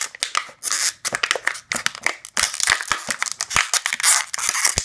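Scissors cutting through the neck of a crumpled plastic water bottle, the thin plastic crackling and snapping in quick irregular clicks.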